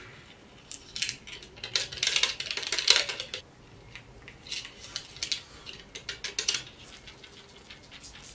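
Stainless steel mesh sieve shaken and tapped to sift flour, baking powder and tea leaves, giving short rattling, scraping bursts in two spells, the first the loudest.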